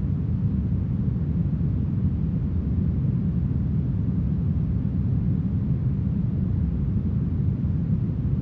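Smoothed brown noise: a steady, even rushing sound, deep and heavy in the bass and thin in the treble, with no gusts or changes.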